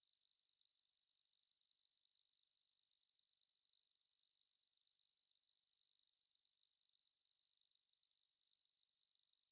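Steady, high-pitched electronic sine tone, a simulated tinnitus ringing, holding one pitch and loudness without a break.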